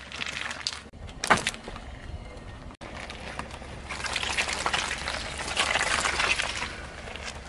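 Car tyre rolling over and squashing slabs of soft gel, a wet squelching and crackling that swells about four seconds in over a steady low engine hum. A single sharp tap comes earlier, about a second in.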